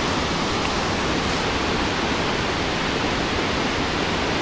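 Loud, steady rush of churning whitewater in the Zambezi River's Boiling Pot below Victoria Falls.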